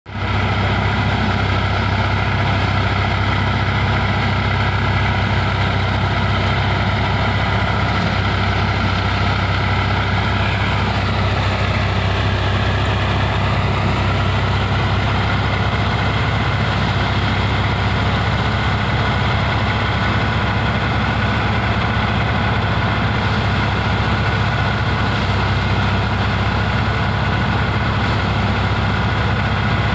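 Tractor engine driving a Harnam threshing machine, running steadily under load with a low hum and a whine from the machine. About eleven seconds in, the whine dips in pitch briefly and then recovers.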